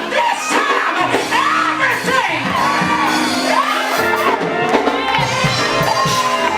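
Church praise break: loud live music with held chords, under a congregation shouting, whooping and singing out.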